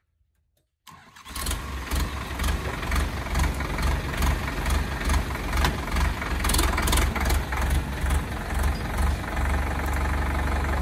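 Indo Farm 3065 DI tractor's diesel engine running as the tractor drives forward, cutting in abruptly about a second in and turning steadier near the end.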